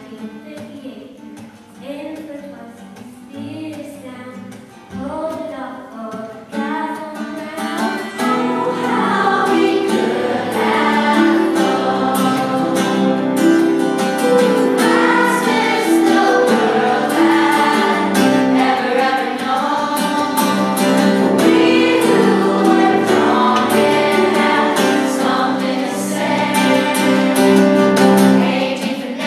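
A group of children and adults singing a song together to acoustic guitar. It starts softly and swells into a louder, fuller chorus about seven or eight seconds in.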